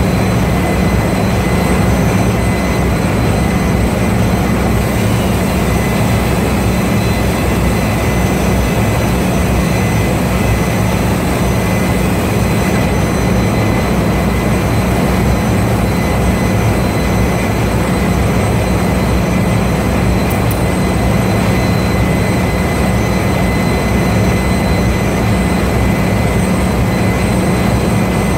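Steady, loud machine noise with a constant low hum and a faint high whine, unchanging throughout.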